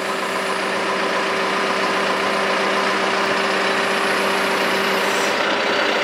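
John Deere 310SL backhoe's diesel engine running steadily as its hydraulics extend the dipper arm outward. The drone swells slightly in the first half second, then holds even.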